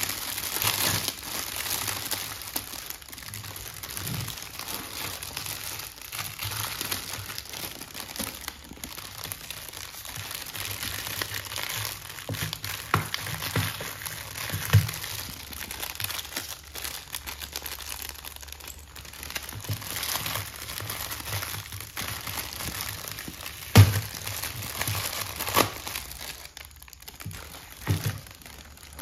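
Clear cellophane outer wrapping and shiny plastic blind bags crinkling and rustling as they are handled and unwrapped, with a few sharp knocks, the loudest about five seconds before the end.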